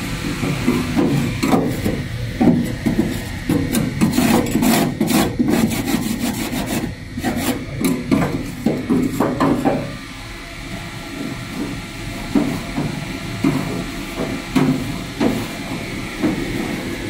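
Hand scraping and rubbing with irregular knocks as a steam oven is worked on during cleaning. The strokes are busy for the first half, then quieter with scattered knocks.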